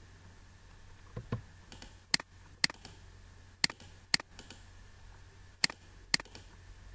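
Computer mouse button clicks: six sharp clicks in three pairs about half a second apart, with two softer thuds a little over a second in, over a faint low hum.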